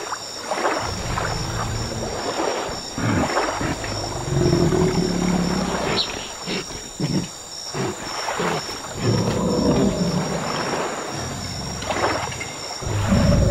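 Sound-designed calls of a large dinosaur wallowing in water: several deep, drawn-out calls, with short splashes between them.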